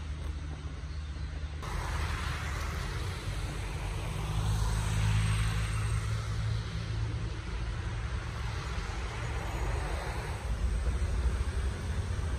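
Steady low rumble and road noise of a car being driven, with a sudden change in the sound about a second and a half in.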